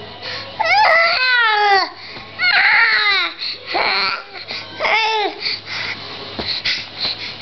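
Baby squealing in four loud, high-pitched bursts whose pitch slides and mostly falls.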